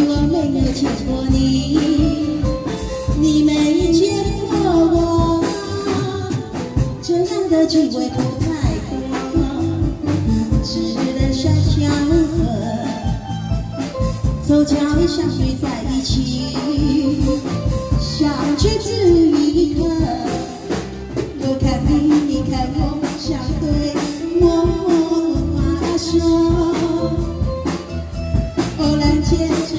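Taiwanese opera (gezaixi) singing: sung phrases through a handheld microphone over a PA, with a band accompaniment keeping a steady beat.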